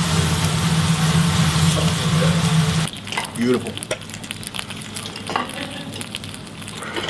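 Steak sizzling on a hot volcanic stone: a loud, dense hiss that cuts off abruptly about three seconds in. A few light knocks follow in the quieter part.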